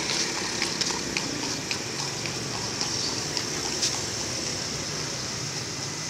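Steady din of an open-air street market with a high hiss and a low rumble, broken by scattered short high ticks.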